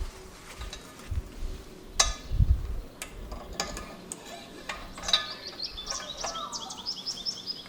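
A few sharp knocks and clicks as a propeller is handled and slid onto an outboard's splined prop shaft. From about halfway through, a bird sings a quick run of high, rapidly repeated chirps in the background.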